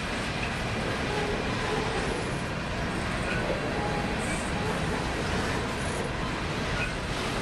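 Freight train of coal hopper cars rolling past at steady speed: a continuous rumble and wheel-on-rail noise, with the Union Pacific locomotive at the rear of the train drawing closer.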